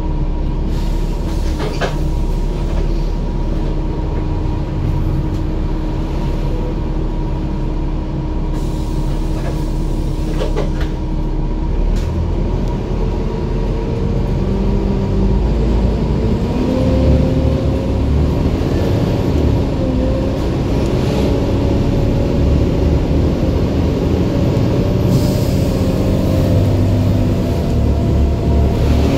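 Volvo B7 double-decker bus's diesel engine and drivetrain heard from inside the upper deck: running at a steady pitch for the first half, then getting louder as the bus pulls away, its pitch rising through the gears, with a couple of brief interior clicks early on.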